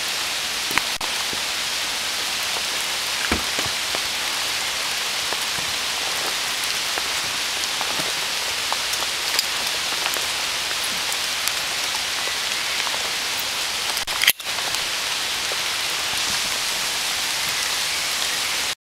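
Steady rain falling on forest foliage: an even hiss with scattered drips ticking. There is a sharp click and a brief dropout about fourteen seconds in.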